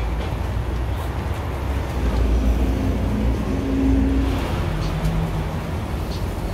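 Steady low rumble of city street traffic, with a vehicle engine humming through the middle and a few light knocks.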